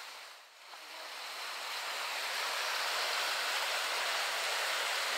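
Storm-swollen brook rushing and churning white over rocks in its bed, a steady rush of water that dips briefly about half a second in and then swells back.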